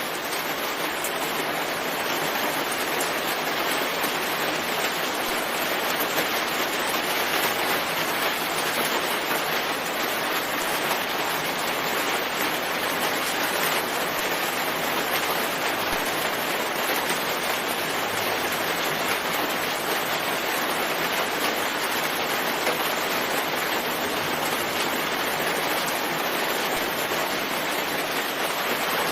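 Steady, even rainfall, fading in over the first second or two.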